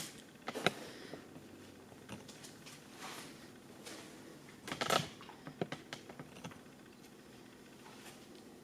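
Scattered light clicks and knocks of hardware and panels being handled while assembling a cat tree, with the loudest cluster about five seconds in.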